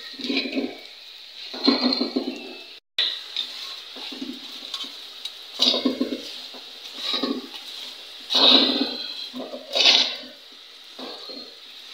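Paratha frying in oil on an iron tawa, sizzling in repeated surges every second or two over a steady hiss, with a brief break a few seconds in.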